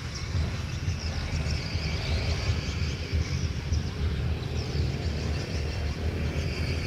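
Outdoor ambience: a steady low rumble with small birds chirping over it.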